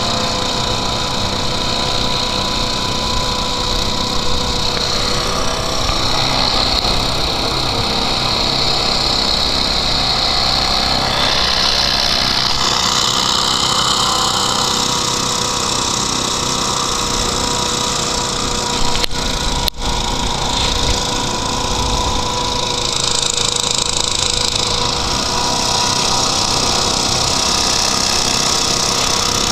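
Hovercraft's engine and air propeller running steadily under way, heard on board. There is a momentary dropout about two-thirds of the way through.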